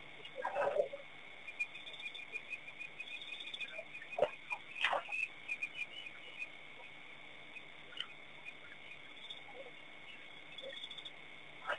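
Dusk wildlife chorus: a steady high-pitched drone, a fast run of chirps through the first half, and a few short calls scattered through.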